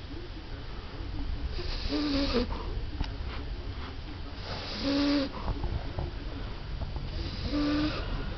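A 14-year-old French Bulldog snoring in her sleep: three snores, about one every two and a half seconds, each a hissing breath with a short humming tone in it.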